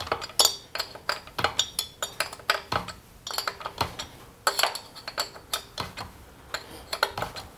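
Irregular metallic clicks and clinks, some ringing briefly: a wrench working the nut that is welded onto a broken muffler screw, backing the screw out of a chainsaw cylinder.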